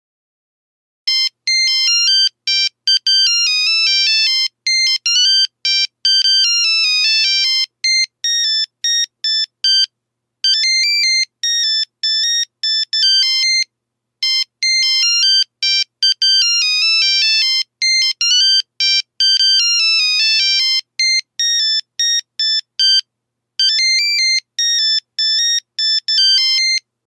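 Nokia 3310 ringtone: a fast melody of single electronic beeps, one note at a time, starting about a second in and broken by a few short pauses between phrases.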